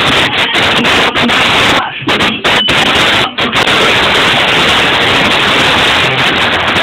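Loud, heavily distorted party din: dance music and crowd noise overloading the recorder into a dense hiss, with brief dropouts about two and three seconds in.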